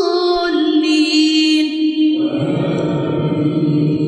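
A Quran reciter's voice holding a long, melodic drawn-out note with no break, its pitch stepping down. About two seconds in it shifts to a lower, rougher held tone.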